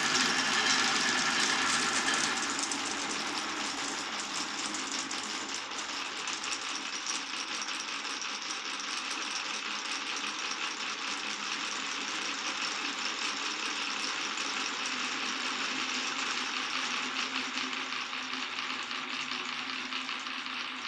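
Many marbles rolling and clattering along a marble run's wooden and plastic tracks, a dense continuous rattle of small clicks, louder for the first couple of seconds.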